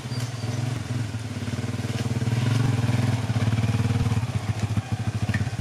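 Motorcycle engine running at low speed with a steady, fast pulse. It grows louder as the bike rides up, then drops back to an idle near the end as the bike stops.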